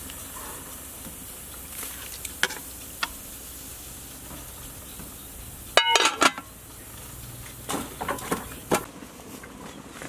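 Metal pot of braised fish simmering with a steady hiss, a spoon clinking against the pot a few times. About six seconds in, the metal pot lid clanks loudly with a brief ring, followed by a few lighter knocks as the lid is handled and wiped with a cloth.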